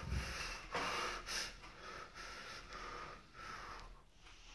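A person breathing audibly: a series of short, noisy breaths that die away near the end.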